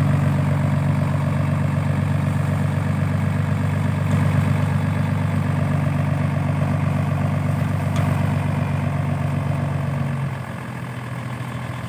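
Heavy vehicle's engine idling steadily, becoming quieter about ten seconds in.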